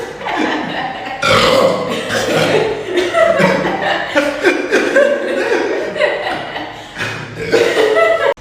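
A man burping loudly: a short burp right at the start, then one long, drawn-out burp of about six seconds that wavers up and down in pitch, and a last short burp near the end that cuts off sharply.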